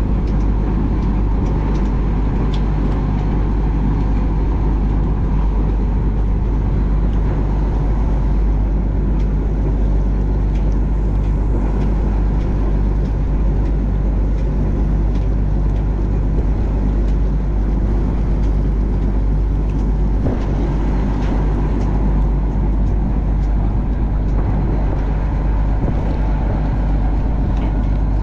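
A fishing boat's engine running steadily with a constant low drone.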